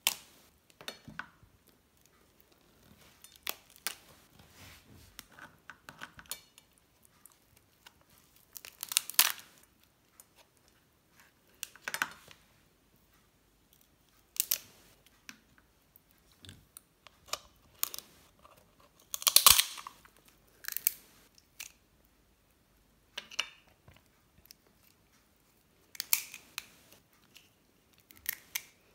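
Hands cracking and pulling apart the shell of a cooked lobster: scattered sharp cracks and crunches every second or two, the loudest about nine and nineteen seconds in.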